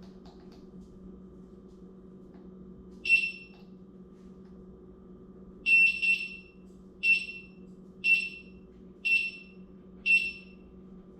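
Begode A2 electric unicycle's buzzer beeping: one high-pitched beep about three seconds in, a quick double beep near six seconds, then four more single beeps about a second apart. A faint steady hum runs underneath.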